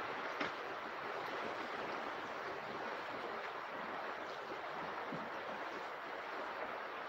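Steady, even rush of river water flowing past the bank, with one soft tap about half a second in.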